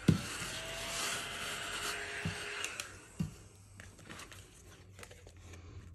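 Hands working a paper savings-challenge card on a table: a knock, then about three seconds of rubbing and rustling, then two light taps.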